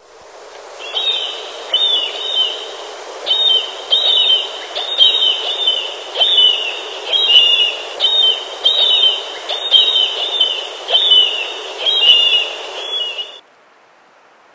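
A bird calling over and over: short, high chirping notes, about one to two a second, against a steady background hiss. The recording stops abruptly near the end.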